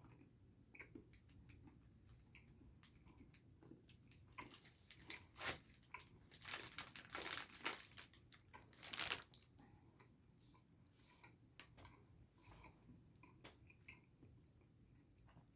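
A candy wrapper crinkling and rustling, loudest in the middle, then faint chewing sounds of soft candy.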